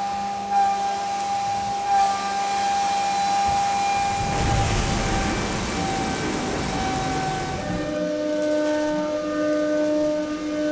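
CNC milling machine cutting metal: a steady high whine from the spinning cutter, with a hissing spray swelling in the middle. At about eight seconds the whine changes to a lower pitch made of several tones.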